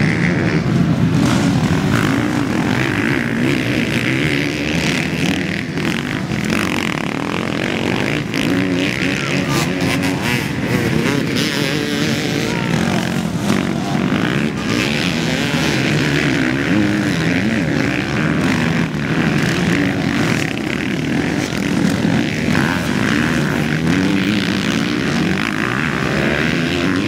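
Several motocross dirt bikes racing past on a dirt track, their engines revving up and down and overlapping. The sound is loud and goes on without a break.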